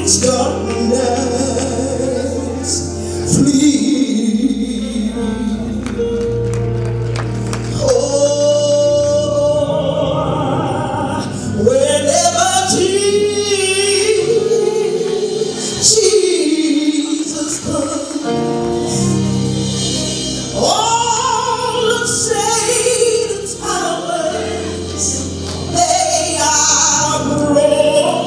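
A woman sings a gospel solo into a handheld microphone in long, held, gliding notes, over organ and band accompaniment.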